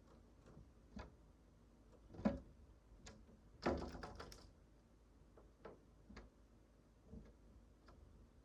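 Scattered light clicks and taps, with a sharp tap about two seconds in and a brief clattering run of clicks about four seconds in.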